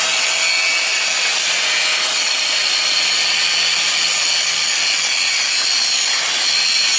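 Angle grinder running steadily under load, its disc grinding down the high spots of a 6010 stick-weld root pass on thick-walled steel pipe. A steady whine sits over the grinding noise.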